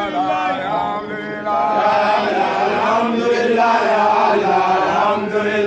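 Voices chanting an Islamic devotional chant in long, sustained melodic phrases without a break.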